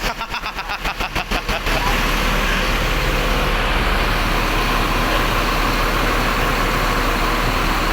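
Large vehicle's engine running steadily close by. In the first second and a half a rapid, even fluttering pulses through the noise, then it settles into a steady drone.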